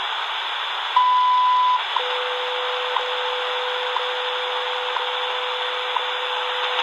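WWV time-signal station on 2.5 MHz shortwave, heard through the portable radio's speaker over static hiss. A short tick sounds every second. About a second in, a long higher beep marks the top of the minute, and from about two seconds in a steady lower tone runs on under the ticks.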